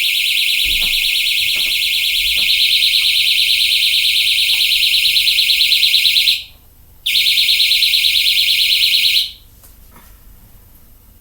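Electronic crossing-signal beeper on a homemade railroad crossing signal, sounding a continuous high-pitched buzz for about six seconds. It cuts out for half a second, then buzzes again for about two more seconds. The break comes from the finger easing off the trigger button. A few faint clicks sound early on.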